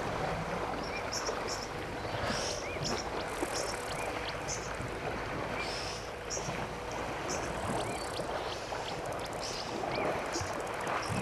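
Elephants splashing and wallowing in a waterhole: a steady wash of water noise, with short bird calls chirping repeatedly over it.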